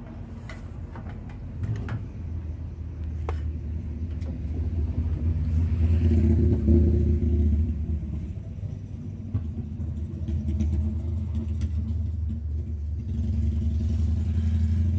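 Low, steady rumble of a passing vehicle, swelling to its loudest about six or seven seconds in and staying loud. A few sharp knocks in the first few seconds as the pipe and tools are handled on the trailer.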